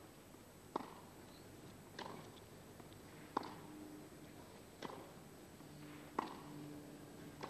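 Tennis ball struck back and forth by racquets on a clay court, starting with a serve: about six sharp hits spaced roughly a second and a half apart, as in a baseline rally.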